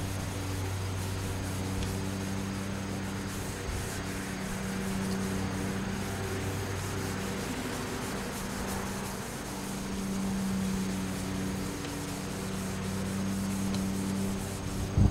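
Hand wet-sanding of a freshly painted Jeep Wrangler YJ body: sandpaper rubbing back and forth over wet paint in a steady scrubbing. A steady low hum runs underneath.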